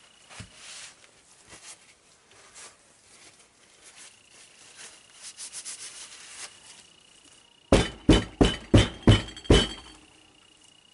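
Handling noise: light rustling, then a quick run of about seven sharp knocks and clinks in under two seconds, a little past halfway through.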